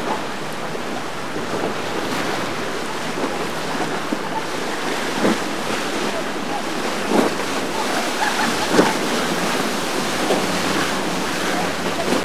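Rough, churning water and waves breaking around boat hulls, with wind buffeting the microphone and a faint steady boat-engine hum underneath. A few sharper splashes stand out about five, seven and nine seconds in.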